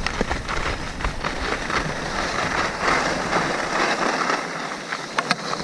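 Skis hissing and scraping over packed snow as the skier glides and slows, with wind rumble on the camera's microphone that drops away about two-thirds through. A few sharp clicks near the end.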